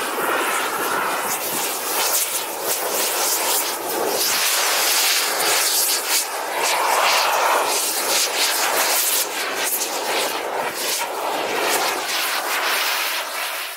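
Gas torch flame hissing steadily as it burns a book, with the burning pages adding uneven crackles. The sound cuts off suddenly at the very end.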